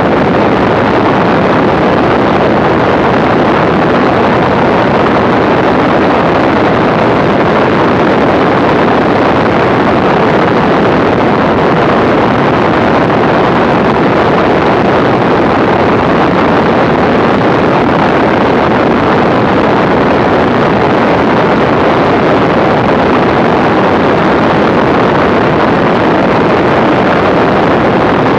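Steady, loud wind rush on the microphone in flight, mixed with the even drone of a Zlin Z-326 Trener Master's six-cylinder Walter Minor engine.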